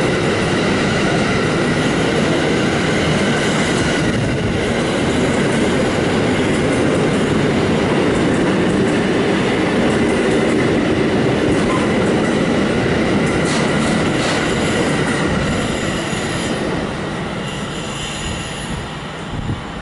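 A train running past on the rails, the cars' wheels rolling loud and steady with thin squealing tones above the rumble. It fades over the last few seconds.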